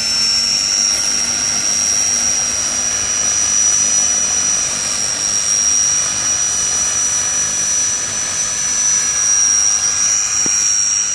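Electric Bell 47 model helicopter running: its electric motor gives a steady high-pitched whine over the rush of the spinning rotor.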